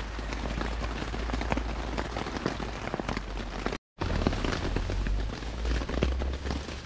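Rain pattering on a tarp overhead: a dense, irregular patter of drop ticks over a low steady rumble, cutting out for a moment a little before four seconds in.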